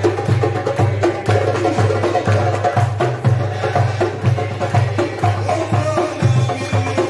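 Egyptian simsimiyya folk music played live by a band, with a steady beat of hand percussion under the melody.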